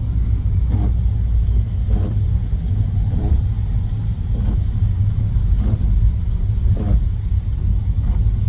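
Steady low rumble of a car driving in the rain, heard from inside the car. A short, faint swish repeats about every second and a quarter.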